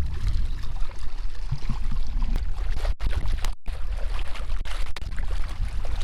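Water splashing and gurgling around a loaded canoe under paddle, over a strong low rumble. The audio cuts out briefly twice near the middle.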